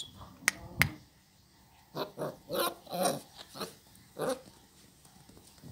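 American Staffordshire Terrier puppies making short growls and yaps while play-fighting, about six quick calls from about two seconds in. Two sharp clicks come just before, under a second in.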